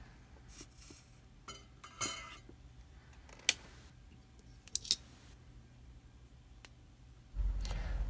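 Scattered small clicks and taps, with a short scratchy rustle about two seconds in, as a soldered connector and wire are handled in an aluminium soldering jig. A low rumble starts near the end.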